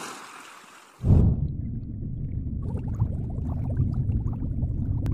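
Underwater intro sound effect: a hissing whoosh fades out, then about a second in a deep rumble starts abruptly and runs on steadily with faint bubbling over it.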